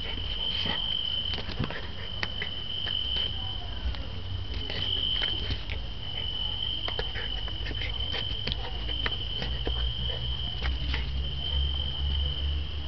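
A steady high trill, insect-like, running without a break, with scattered light ticks and taps over it.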